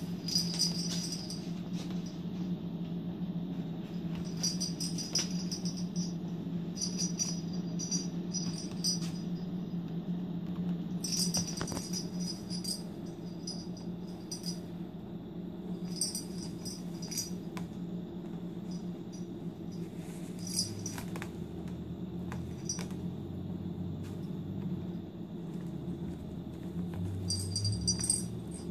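Small jingle bell jingling in short bursts every few seconds as kittens move and play, over a steady low hum.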